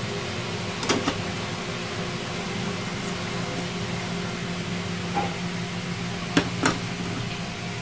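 Aluminium steamer tray of a rice cooker clinking against the metal inner pot as it is lifted off, with two quick clinks about a second in and two more near the end. A steady low hum lies under them.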